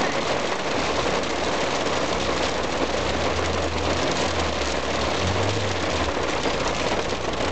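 Hail and heavy rain hitting the roof and windshield of a moving car, heard from inside the cabin as a dense, steady noise over the low hum of the car's engine.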